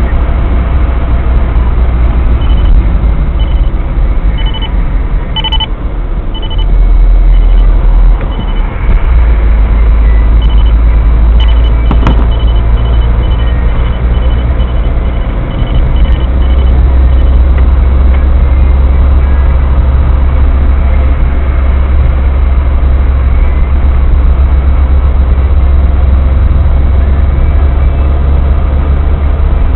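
Steady low road and engine rumble inside a moving car, with a radar detector giving a run of short high-pitched alert beeps. The beeps start a few seconds in at about one a second, come faster from about halfway through the first half, and stop about 17 seconds in.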